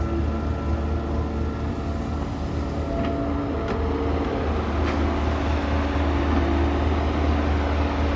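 Kobelco SK120-1 excavator's diesel engine running steadily, with a few faint knocks around the middle.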